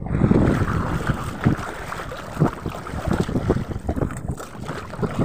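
Seawater splashing and sloshing in irregular bursts, with wind buffeting the microphone.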